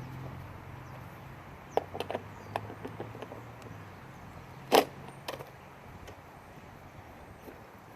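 Sharp clicks and knocks of metal parts and tools being handled while a wheel with new bearings is refitted to a go-kart, several light taps about two seconds in and one louder knock about five seconds in, over a faint low hum.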